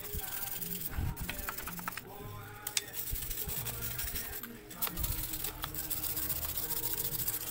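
Background music with a steady beat, over quick scratchy rubbing as a sponge is wiped across a metal engine valve cover.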